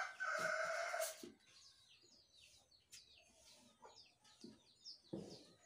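A rooster crowing, its long call ending about a second in, followed by faint chirping of small birds.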